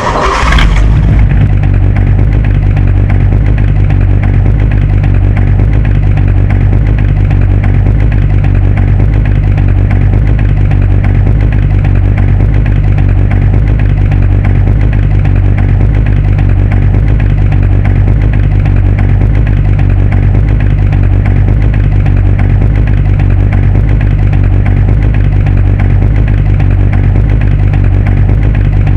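Muscle car engine firing up with a brief loud burst as it catches, then idling steadily with a deep, even rumble.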